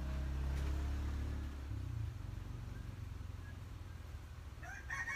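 A motor vehicle engine running with a low steady hum that shifts in pitch about two seconds in. Near the end a rooster starts crowing.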